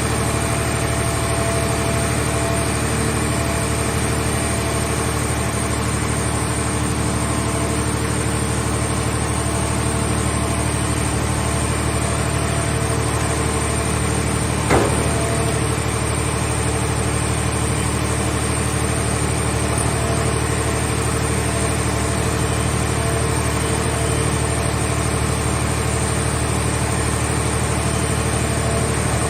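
A hydraulic vehicle-shell baler's power unit running at a steady drone, with a single sharp knock about halfway through.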